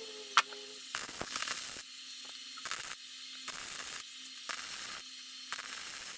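Arc welding on a steel frame: about five short bursts of crackling, sizzling arc, each under a second long, as the short foot piece is tack-welded on. There is a sharp click just before the first burst.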